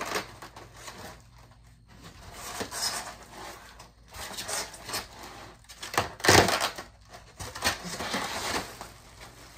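Cardboard boxes scraping and sliding against each other, with styrofoam packing rustling and squeaking, as an inner box is worked out of a shipping box. The loudest is a sharp scrape about six seconds in.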